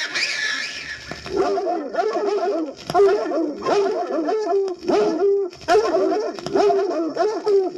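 Dog yelping and whimpering in quick, wavering calls that come in clusters with short pauses, a recorded spooky sound effect.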